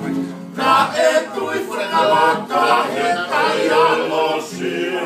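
A group of men singing a Tongan song together, several voices at once, swelling in loudly about half a second in.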